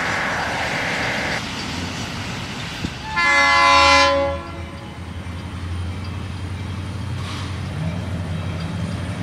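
Diesel locomotive air horn sounding one loud blast of about a second, about three seconds in, over a low steady rumble of the train.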